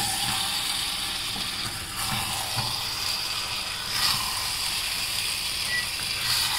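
Marinated paneer tikka with onion and capsicum frying in oil in a steel kadai: a steady sizzle, with the scrape of a wooden spatula stirring it a few times. The masala is being roasted and kept moving so it does not stick to the pan.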